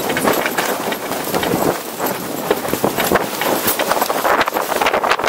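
Deck noise aboard a tall ship under sail: a steady rush of wind and water, with a dense, irregular patter of small clatters and knocks.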